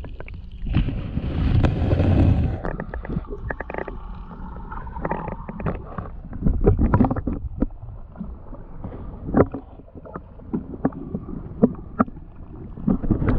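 Muffled sound of a camera held underwater in a lake: low rumbling and gurgling of water around the microphone, with irregular knocks and clicks, and a louder rush about a second in.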